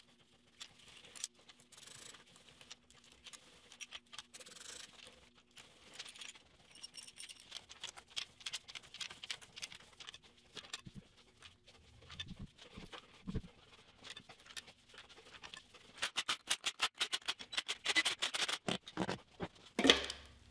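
Light metallic clicks and clinks of hand tools and rocker-arm parts on a small-block Chevy 350 cylinder head as the head bolts are loosened. A run of rapid clicking comes in the last few seconds, as the head is worked loose.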